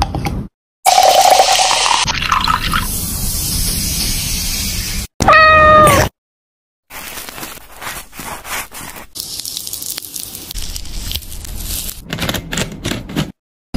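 A cat's single meow about five seconds in, short, with its pitch bending down at the end. Before it, a noisy stretch of kitchen sound with a rising tone, like liquid filling a glass of ice; after it, soft scattered clicks and crackles.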